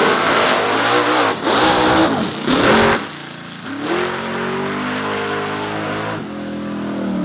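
Drag-racing cars launching at full throttle: loud engine noise with brief dips, then quieter from about three seconds in as the cars run away down the strip, one engine's note rising and then holding, with a step in pitch near the end.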